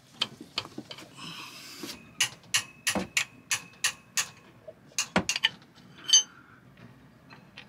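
Steel combination spanner worked on a diesel engine's injector nut: a regular run of sharp metallic clicks, about three a second, then a few more clicks and one louder ringing metal clink about six seconds in.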